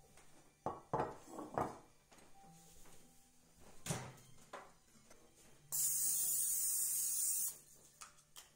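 A few knocks and clunks of handling in the kitchen, one as a glass baking dish is set down on a wooden counter, then a steady aerosol hiss of about two seconds as cooking spray greases the dish.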